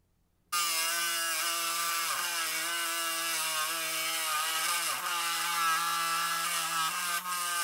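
Wet diamond lapidary saw running with a steady motor hum and whine as an agate is fed into the blade. The sound starts abruptly, and its pitch dips briefly twice.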